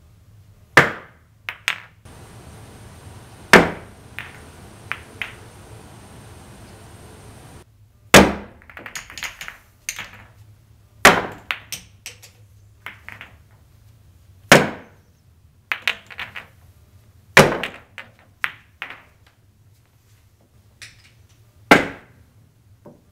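Pool cue tips striking the cue ball and billiard balls clicking against each other, in a run of separate massé trick shots. There are sharp clicks at uneven spacing, some in quick pairs, with a steady hiss over one stretch early on.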